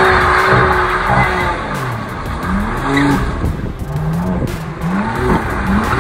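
A BMW coupe's engine revs up and down in repeated rising pulls while the rear tyres squeal and skid through donuts. The tyre noise is strongest in the first two seconds and eases off in the middle before the revs climb again.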